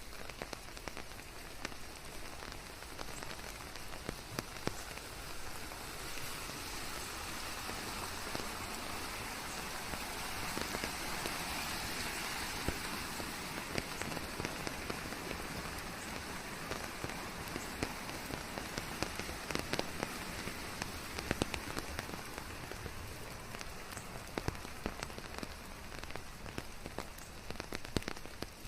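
Steady rain falling on leaves and surfaces, a dense hiss with many individual drops pattering through it, blended with white noise. The rain swells a little louder for a while and then eases back.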